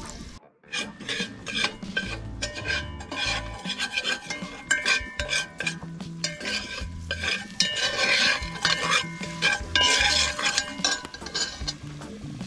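A metal utensil scraping and knocking in quick, irregular strokes, after a brief cut about half a second in.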